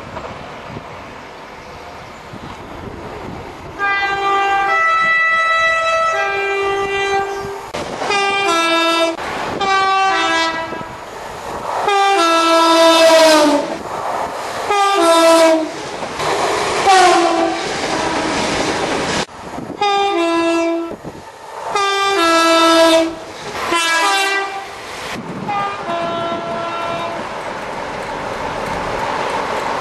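A series of two-tone train horn soundings, high and low notes alternating in short and longer blasts, some falling in pitch as the train passes, over the noise of trains running on the rails. The horns stop about 25 seconds in, leaving the rumble of a passing train.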